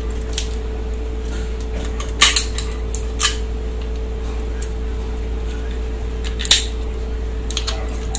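Scattered sharp clinks and knocks of dishes and utensils, about five of them, the loudest about two seconds in and near six and a half seconds, over a steady low hum.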